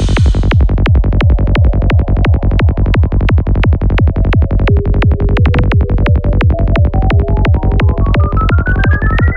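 Electronic dance music with a steady, driving drum beat; near the end a synth line climbs steadily in pitch.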